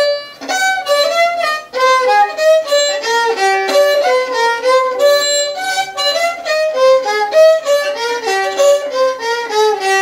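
Handmade rabeca, a Brazilian folk fiddle, bowed in a quick melody of short notes, some joined by slides. Its player calls it a little out of tune.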